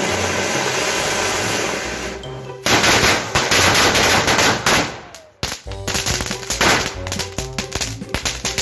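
An anar fountain firework hissing steadily as it sprays sparks, then, about three seconds in, a string of firecrackers going off in a rapid crackle of bangs, with a short lull a little past the middle before the bangs resume.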